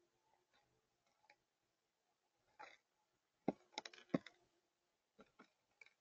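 Mourning dove pecking at seed and peanuts on a feeder tray: faint, sharp bill taps and clicks, a quick cluster of them about halfway through and a few more near the end.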